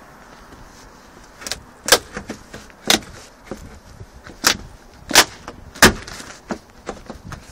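Footsteps in boots on weathered timber balcony decking, a sharp wooden knock with each step, starting about a second and a half in: six loud knocks with fainter scuffs between them.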